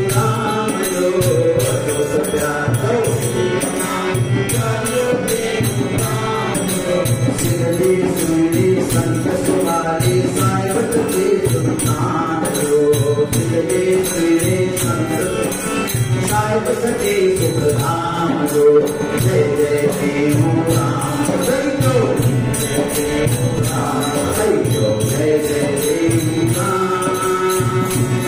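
Harmonium playing a devotional bhajan tune over a steady beat.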